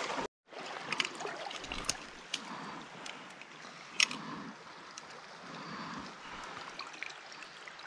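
Shallow stream water running and trickling around wading legs, with a few small clicks and taps of handling; the sharpest click comes about four seconds in.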